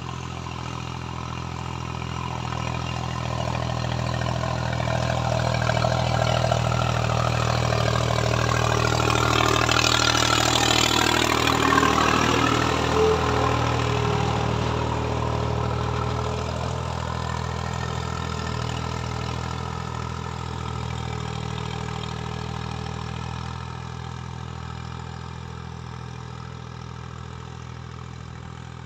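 Four-wheel-drive diesel tractor engine running steadily under load while dragging a land leveler through dry soil. The sound grows louder towards the middle, with a rushing scrape of soil at its peak, then fades away.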